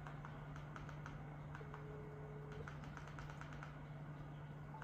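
Faint, light taps a few times a second of fingers on a phone's touchscreen, over a steady low hum.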